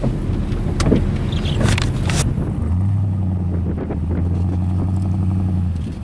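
GMC Sierra plow truck's engine under load as the stuck truck drives forward out of deep, wet snow, its rear wheels spinning. About three seconds in the engine settles into a steady drone at raised revs, which drops away just before the end.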